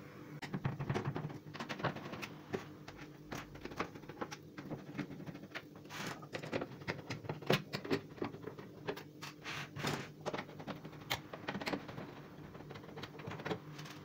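Irregular small clicks, taps and scrapes of a screwdriver working the screws of a microwave oven's sheet-metal outer cover, with the case being handled and shifted on the counter.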